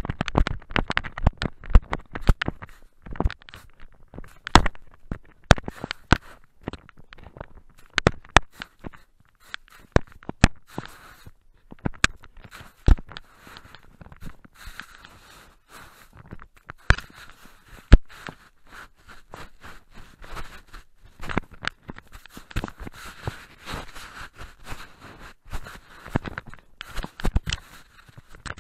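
Handling noise from a small action camera being knocked about and rubbed in the snow: irregular sharp knocks and clicks, with stretches of scraping, rustling hiss in the middle and near the end.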